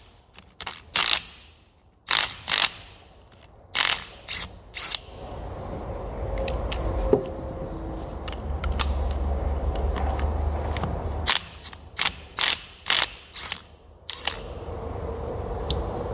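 Ratchet and socket clicking in short runs, with sharp metallic clinks, as a 19 mm sensor is unscrewed from a Honda B-series cylinder head. The clicks come in separate clusters with pauses between them.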